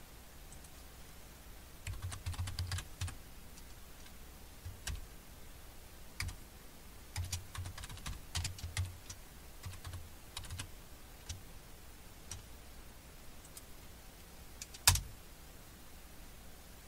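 Computer keyboard typing in irregular bursts of keystrokes, then one louder keystroke near the end: the Enter key being pressed.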